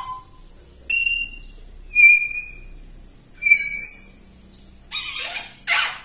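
African grey parrot whistling: three short whistles about a second apart, the middle one longest, followed near the end by two short rasping calls.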